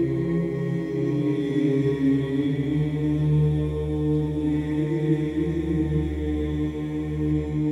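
Orthodox church chant sung a cappella: low voices holding long, slowly changing notes over a steady low drone.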